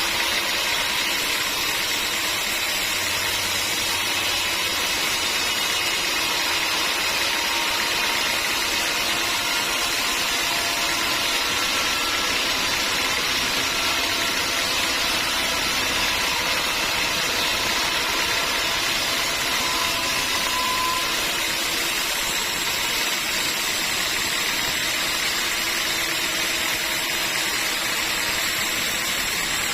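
Sawmill machinery running steadily: a continuous, even mechanical noise with a high hiss and a few faint steady whines, no breaks or changes.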